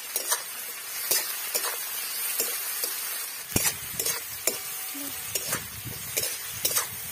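A long metal spatula scraping and tapping against a metal kadai as onions and tomatoes are stirred while they fry in hot oil. The strokes come irregularly, about every half second, over a steady sizzle.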